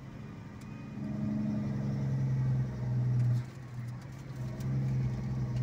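A vehicle's engine running while driving, heard from inside the cabin as a steady low hum over road noise. It swells about a second in, eases briefly past the middle, then swells again.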